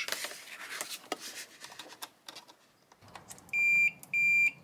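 A Fluke 115 digital multimeter's continuity beeper gives two short, steady, high beeps near the end, signalling continuity through a newly installed tactile switch. Before them come faint clicks of the test probes touching the circuit board.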